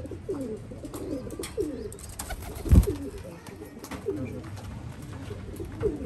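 Homing pigeons cooing, a steady run of short low coos that fall in pitch, with one dull thump a little under three seconds in.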